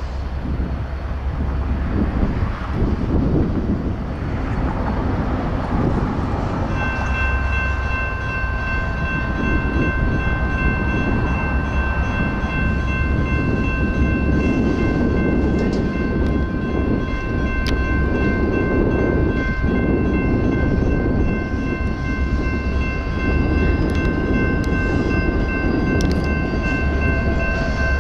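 Railroad crossing warning bells start ringing about seven seconds in and keep ringing steadily while the gates come down, over a steady low rumble of an approaching diesel locomotive.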